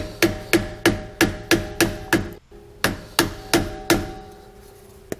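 A hammer tapping a flathead screwdriver wedged under the flange of a trailer hub's metal grease cap to pry the cap loose. It gives a dozen quick taps, about three a second, in two runs with a short pause near the middle, and each tap rings briefly off the metal cap and hub.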